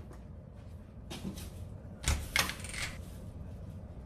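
Footsteps and light knocks of a person walking out of a small room: a handful of irregular soft taps, the strongest about two seconds in, over a low room hiss.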